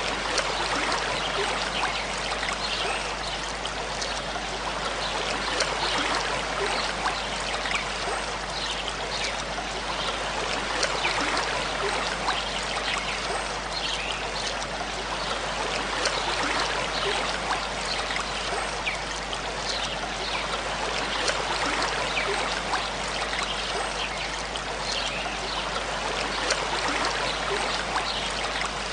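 Aquarium water trickling and splashing steadily, with many small plinks of drops and a steady low hum underneath.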